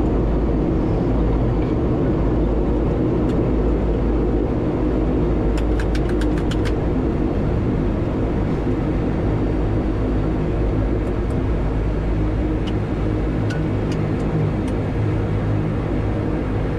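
Turboprop airliner's engines and propellers heard steadily from inside the cockpit as the aircraft rolls along the runway after landing, over a low rumble. A quick run of light clicks comes about six seconds in, and a few more follow later.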